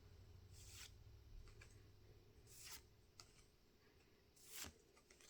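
Faint, brief swishes of trading cards sliding against each other, three times about two seconds apart, over a quiet room.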